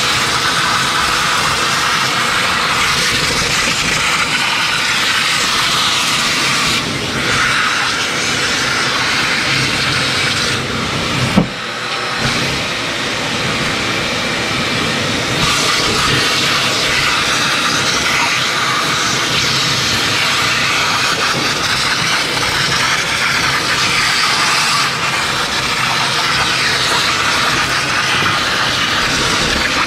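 Shop vacuum running steadily, its crevice nozzle sucking up dust and debris from a steel lift deck, the sound shifting as the nozzle moves. A single sharp knock about eleven seconds in.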